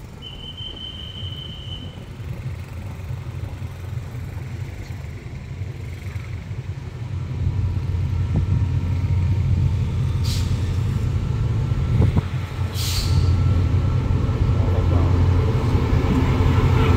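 SRT QSY-class diesel-electric locomotive approaching at the head of a passenger train, its low engine drone steadily growing louder as it nears. Two short hisses of air come about two-thirds of the way through.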